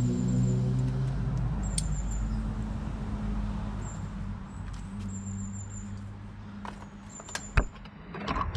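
Background music with held tones fades out in the first second or so. It leaves a low steady rumble, with a few sharp clicks and knocks near the end.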